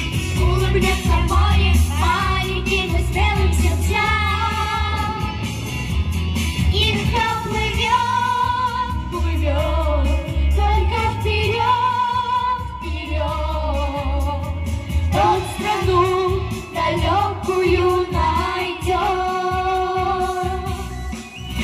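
Children's vocal group singing a pop song in unison into microphones, over a backing track with a steady bass line.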